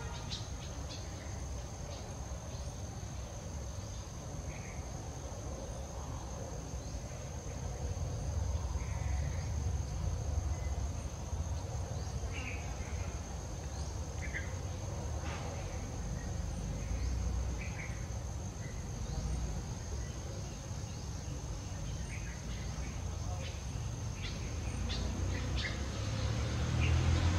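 Steady high-pitched drone of insects, with scattered short chirps and a low rumble underneath.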